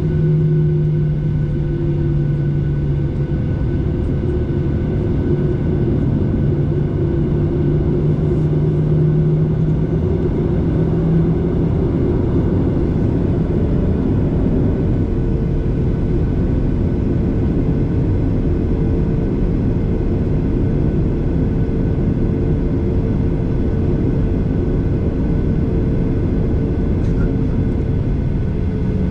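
Steady engine drone and rushing air noise inside a jet airliner's cabin, with several steady hums over it. A strong low hum drops away about a third of the way in, and a higher hum shifts slightly up in pitch.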